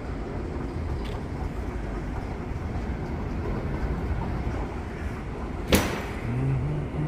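Steady low rumble of a station hall's ambience, with one sharp knock about six seconds in, followed by a few short low hums.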